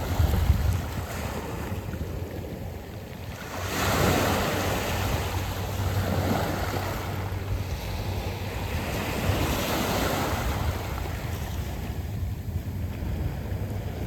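Waves breaking and washing over a round-pebble (mongdol) beach. A wave surges in about four seconds in, followed by further washes of surf, over a steady low rumble of wind on the microphone.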